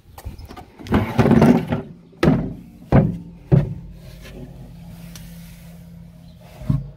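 Plastic planter seed box lid being unlatched and swung open: a scraping rustle about a second in, then three sharp hollow plastic knocks, followed by a low steady hum and one more knock near the end.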